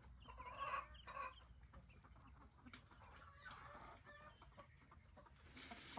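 Faint clucking of a flock of chickens, a few calls in the first second or so, then softer scattered sounds.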